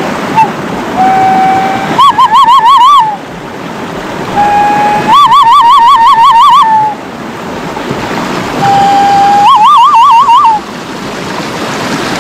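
Loud cupped-hand whistle blown three times, each call a steady low note that jumps up to a higher, warbling note.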